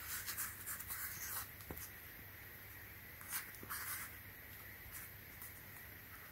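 Faint scratchy rubbing of fingers pressing and smoothing masking tape onto a slide sandal's freshly glued strap, in two short spells: through the first second and a half and again around three and a half seconds in.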